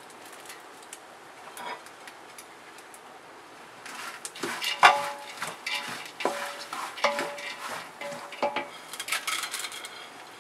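A plate and a wooden spatula knock against a metal cooking pot, starting about four seconds in; each knock rings briefly. Crisp fried sev noodles rustle and crackle as they are tipped into the pot and worked into the chivda mix.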